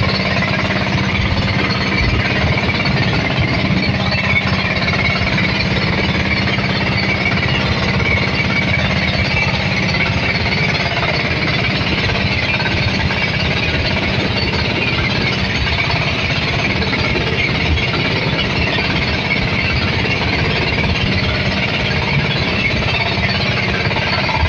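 Small motorized bangka's engine running steadily with a rapid knocking beat, holding the same speed throughout.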